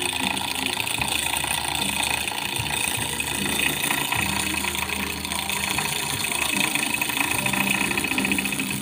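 Powered hammering handpiece rapidly tapping a monel ring's surface, a fast, steady metallic chatter, as it stamps a hammered 'ketokan' texture into the metal. A low motor hum under it cuts out briefly about a second in and again just after four seconds.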